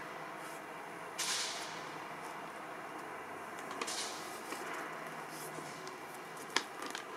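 Glossy paper brochure rustling as it is held and shifted, in a few brief swishes, with one sharp click near the end.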